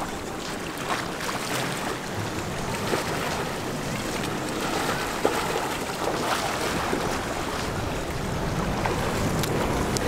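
Steady rushing of wind on the microphone over choppy open water, with no distinct events standing out.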